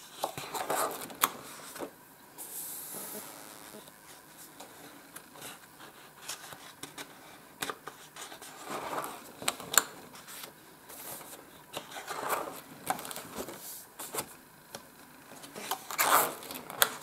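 Pages of a spiral-bound colouring book being turned by hand: a papery rustle and swish with each turn, about four turns, with sharp little ticks of paper and fingers in between.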